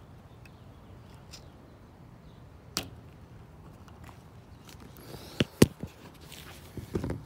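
Red chalk line string pulled taut and snapped against a sheet of OSB: a light click, then two sharp cracks about five and a half seconds in, the second the loudest, followed by a few softer knocks near the end.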